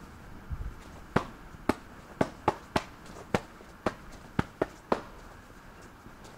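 Sharp clicks and knocks, about ten in four seconds at an uneven pace, over a steady hiss. It is the rattle of a bicycle and its handlebar camera mount over the road surface, picked up by the bike-mounted camera.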